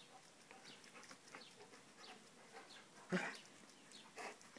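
Faint birdsong chirping, with a dog giving one short bark about three seconds in and a softer one about a second later.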